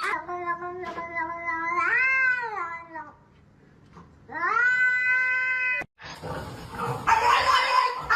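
Cat yowling: two long drawn-out meows, the first wavering then rising and falling in pitch, the second cut off abruptly. Then a few seconds of noisy rustling with some knocks.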